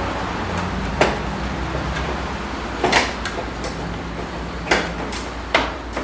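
Scattered sharp clicks and knocks, about five of them, from hands and tools working the latch and lock parts inside a BMW E39 car door shell, over a steady low hum.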